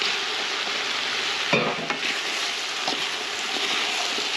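Meat, potatoes and chickpeas sizzling in an aluminium pot as a metal spoon stirs them, the spoon clinking against the pot about a second and a half in and more lightly near three seconds.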